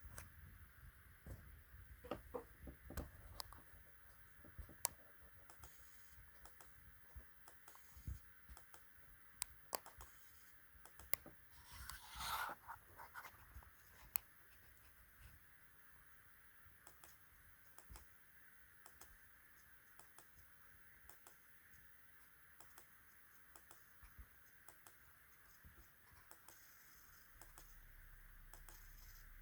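Faint, irregular clicks and ticks from under the keyboard of an Asus ROG Strix Scar 18 laptop, the strange noise it is showing, over a faint steady hiss. There is one brief, louder scratchy sound about twelve seconds in.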